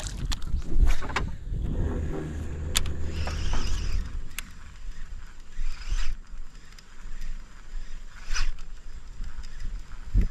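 Baitcasting reel being cranked in, a light whirring with scattered clicks, over a low rumble that fades after about four seconds.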